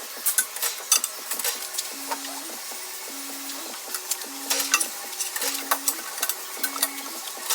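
Light metallic clinks and rattles of tools and wheel parts being handled, over a low hum that pulses on for about half a second roughly once a second.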